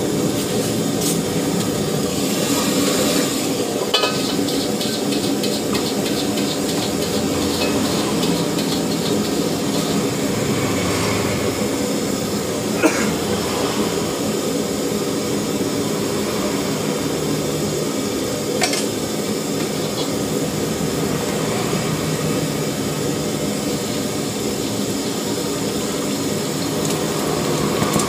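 Steady noise of the wok stove running, with a bamboo wok brush scrubbing the wet wok near the start and a couple of sharp metal knocks of pots and utensils later on.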